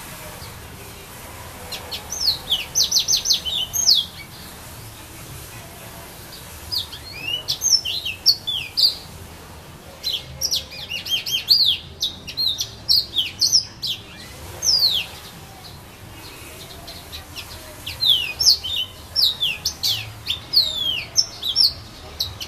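Yellow-fronted canary (the 'serin du pays' of Réunion) singing in four bouts of quick, high, sweeping notes, with short pauses between the bouts.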